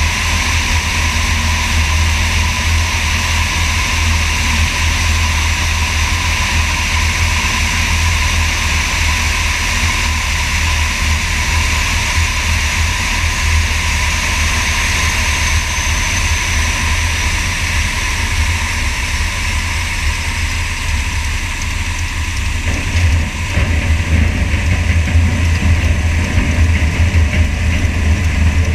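Wind rumbling over a wing-mounted camera, with the steady drone of the Sonex light aircraft's propeller engine, on a landing approach. About three quarters of the way through, the sound dips briefly, then turns louder and rougher as the aircraft reaches the runway.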